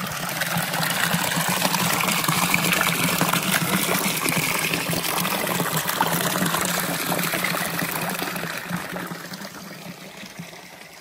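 Spring water pouring from a spout into a stone trough, splashing steadily into the pool; it grows fainter over the last few seconds.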